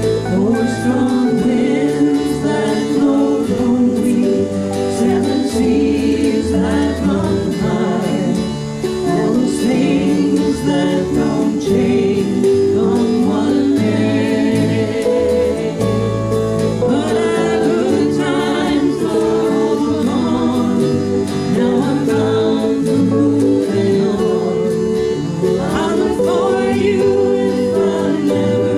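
Live folk band with mountain dulcimer, acoustic guitar, keyboard and bass playing a country-folk song, with several voices singing the chorus together in harmony.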